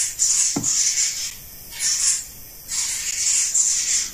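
Repeated breathy hissing in four bursts, each up to about a second long, with short pauses between them, and a single brief knock about half a second in.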